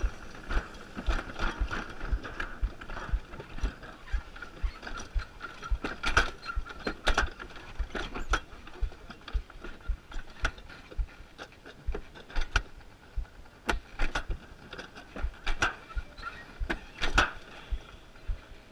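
Summer toboggan sled rolling slowly down its track, with a steady whine from the wheels that fades near the end and repeated clicks and knocks from the sled and track.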